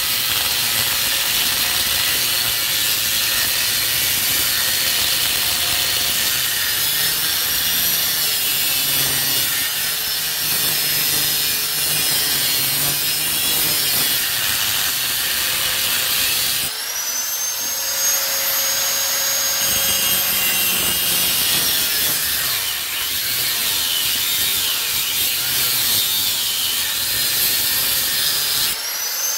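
Angle grinder with a cut-off disc cutting through a Kawasaki Ninja R motorcycle frame: continuous metal grinding over a motor whine that wavers as the disc bites. About 17 seconds in, and again near the end, the disc comes free of the cut and the motor spins up to a higher, clean whine.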